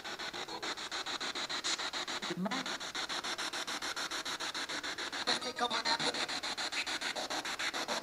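Ghost-hunting spirit box sweeping through radio stations: an even, rapid chatter of static, about six pulses a second, with a few brief voice-like fragments, one read on screen as "in mine".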